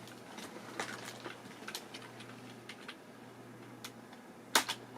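Sparse light clicks of computer keyboard keys, with a sharper double click a little before the end, over a low steady hum.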